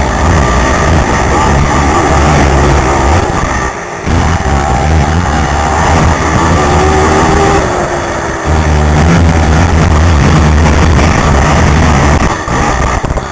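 Racing quad's engine running hard at high revs, heard from the rider's helmet; the throttle is briefly chopped twice, about four and eight seconds in, then opened again.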